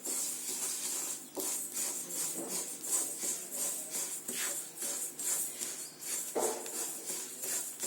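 Dry little millet grains being stirred and turned in a kadai over a low flame, a continuous dry rattling and scraping of grain against the pan with many quick irregular strokes.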